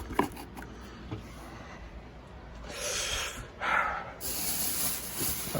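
Accessories and their packaging being handled: a light click at the start, then two short soft rustling, hissing noises about three and four seconds in.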